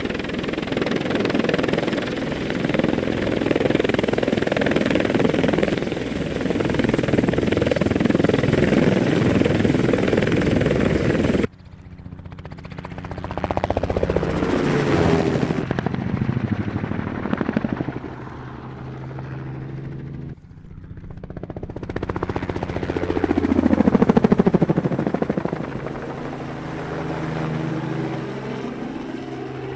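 Engine noise from vehicles: first a dense, steady noise that cuts off suddenly, then two separate pass-bys, each swelling and falling in pitch as it goes past.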